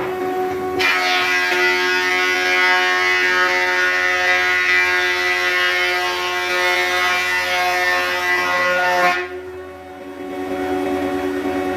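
Wood thickness planer running with a steady motor hum; about a second in its cutter head bites into a long solid-wood board and a loud, rough planing noise runs for about eight seconds, then cuts off suddenly as the board leaves the cutter, and the machine runs on idle.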